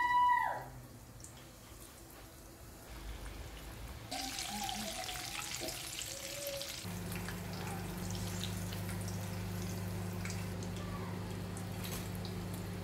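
Plantain cheese balls deep-frying in a saucepan of oil: the oil sizzles and crackles, growing louder about four seconds in. A steady low hum joins about seven seconds in. A brief high call that rises and falls is heard right at the start.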